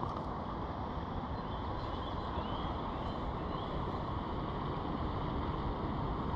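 Steady rumbling wind noise on the microphone, with a few faint bird chirps about two to three and a half seconds in.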